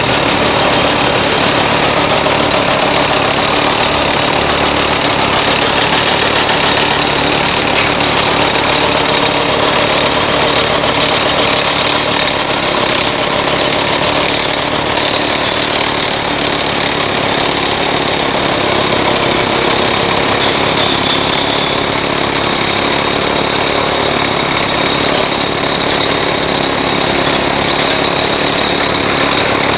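Diesel engines of a Liebherr hydraulic excavator and a Mercedes-Benz NG dump truck running steadily as the excavator loads the truck.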